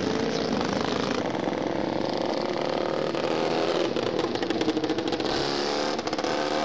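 Several vintage racing motorcycles pass at speed, their engines revving hard. The engine note rises and falls as each bike goes by.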